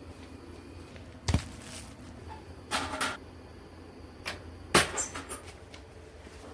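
A handful of sharp knocks and clacks, the loudest about three quarters of the way through, over a low steady hum.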